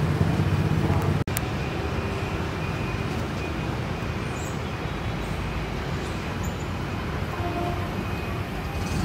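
Steady outdoor background noise, a traffic-like hiss and rumble, which drops and changes abruptly about a second in at an edit; a few faint high chirps sit over it.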